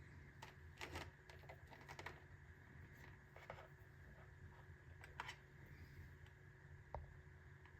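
Faint, scattered clicks and short rustles, irregularly spaced, over a steady low hum.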